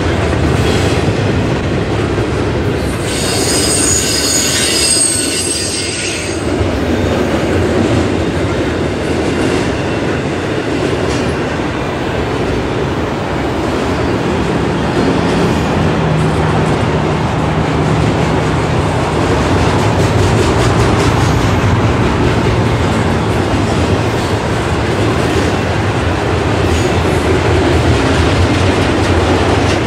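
Double-stack intermodal container well cars rolling past at close range: a steady rumble of steel wheels on rail. A high-pitched wheel squeal rings out from about three to six seconds in.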